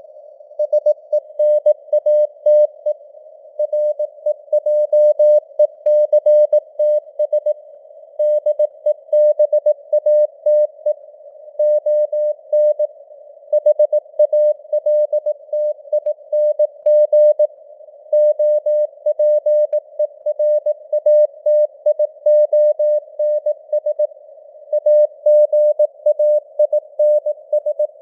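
Morse code sent at 18 words per minute: a pure tone of about 600 Hz keyed on and off in dots and dashes, grouped into letters and words. Between the elements a faint narrow hiss of simulated receiver noise sits around the same pitch, and the signal strength varies as in radio fading (QSB).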